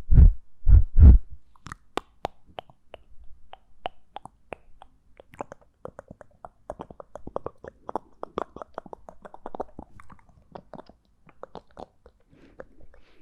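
Close-miked ASMR mouth sounds: a fast run of short, wet mouth clicks and smacks, thickest in the middle, after a few heavy low thumps in the first second or so.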